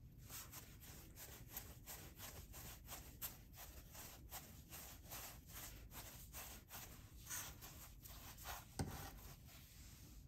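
Hands rolling and shaping soft bread dough on a flour-dusted wooden board: faint, soft rubbing strokes a few times a second, with a slightly louder knock near the end.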